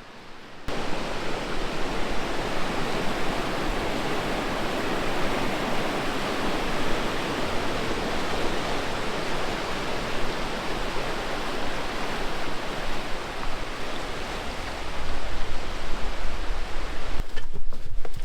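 River water rushing over rapids, a steady loud rush that cuts in suddenly about a second in.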